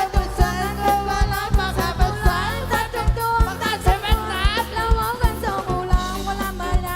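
A song with a singing voice over a steady drum beat and heavy bass, played loud through a parade sound truck's speaker system.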